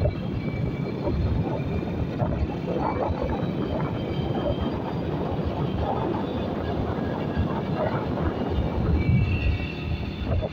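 Honda motorcycle's engine running steadily at cruising speed on the open road, with heavy wind buffeting on the microphone and tyre noise.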